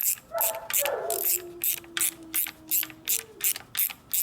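Ratchet wrench clicking in quick, even strokes, about three a second. A dog whines over it: one long whine that falls in pitch and then holds steady, and a shorter one near the end.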